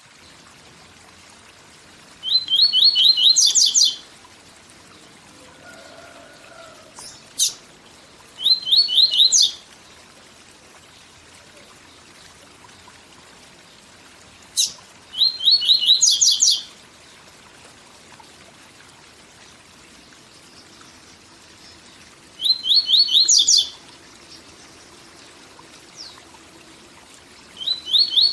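Papa-capim (Sporophila seedeater) singing the 'tui tui zel zel' song in short phrases several seconds apart. Each phrase is a quick run of repeated notes ending in a higher flourish, over a steady waterfall rush.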